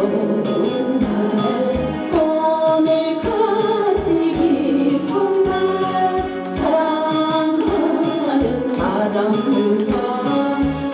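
Voices singing a Korean gospel praise song over instrumental accompaniment with a steady beat.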